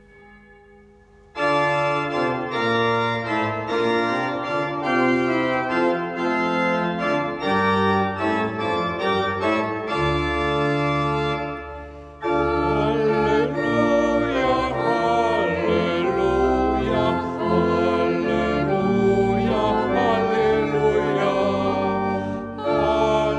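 Church pipe organ starts playing a hymn introduction with sustained chords a little over a second in. About halfway through, singing voices join over the organ accompaniment in a sung Halleluja.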